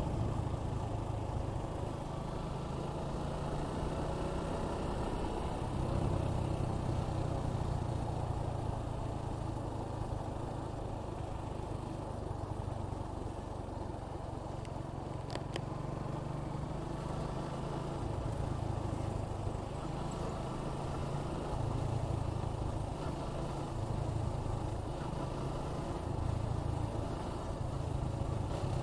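Suzuki Gixxer 155's single-cylinder engine running steadily while riding, its pitch rising and falling with the throttle, with wind rushing over the microphone.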